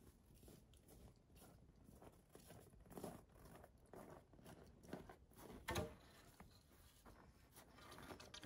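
Faint footsteps crunching through snow, in an uneven series of short crunches that grow a little louder about three to six seconds in.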